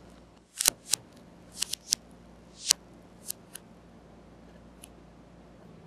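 Protective plastic film being peeled off the glossy plastic visor of an LED face mask: about eight short, sharp crackles and snaps, irregularly spaced.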